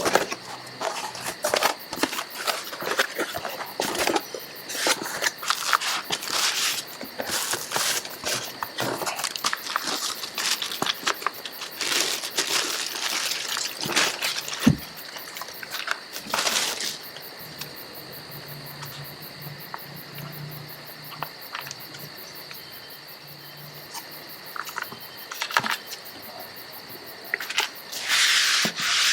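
Cardboard box and plastic packaging being opened and handled: crinkling and rustling with small knocks, busy for about the first half, then quieter with only occasional rustles, and busier again near the end.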